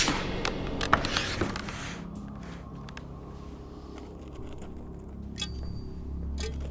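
A music cue ends in the first two seconds, leaving a quiet low hum. About a second and a half before the end, sharp, ringing ticks begin, about one a second.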